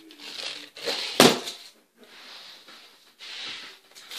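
Rustling and shuffling as someone moves about handling a small toy car on a carpeted floor, with one sharp knock about a second in.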